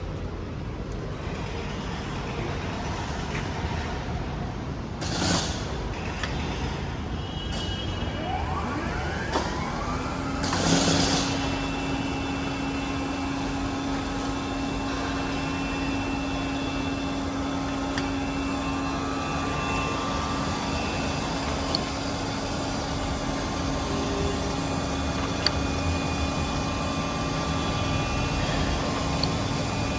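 Jones Shipman 1076 cylindrical grinder starting up and running. About nine seconds in, a rising whine is heard as a motor spins up, with a brief rush of noise just after. From then on a steady hum holds over the machine's constant running noise, with a short rush of noise about five seconds in and a few faint ticks later on.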